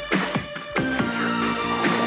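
Electronic music with a drum beat and held synth notes, played back through a first-generation JBL Flip portable speaker as a sound-quality test sample.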